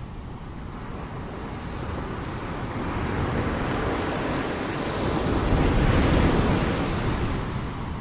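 Ocean waves washing onto a shore: the surf noise swells over several seconds, is loudest about three-quarters of the way through, then eases off again.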